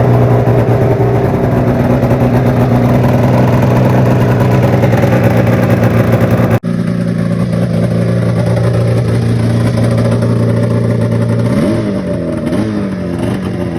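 Polaris Fusion 900 snowmobile's two-stroke twin engine running steadily at a fast idle. It is briefly cut off about halfway through, then runs on, with a few short throttle blips near the end. The engine keeps running instead of shutting off, so the start-then-stall fault is cured.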